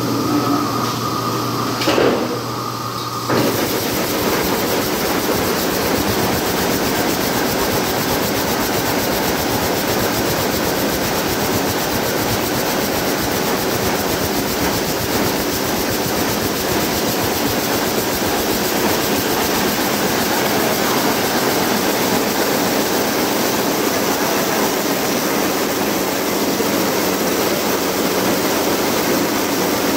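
Picanol jacquard label loom: a steady hum with a whine, then about three seconds in the loom starts and runs at speed with a loud, fast, even clatter.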